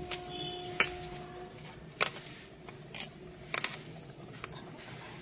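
Kitchen utensils and dishes clinking and knocking in scattered sharp clicks, about one a second. A faint steady hum stops about a second and a half in.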